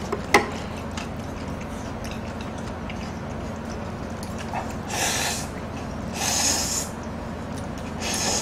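Close-miked eating sounds: a sharp click of chopsticks against a bowl just after the start, then three noisy slurps of spicy Buldak noodles, each under a second long and spaced about a second apart.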